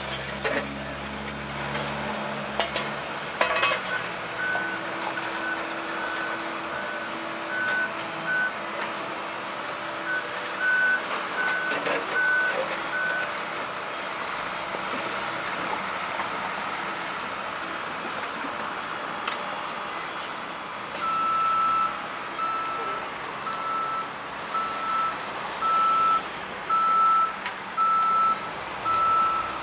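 Backup alarms of construction machinery beeping in short, evenly spaced beeps over steady engine running. One alarm beeps for a few seconds twice with a pause between. A second, slightly lower-pitched alarm starts about two-thirds of the way through and keeps going.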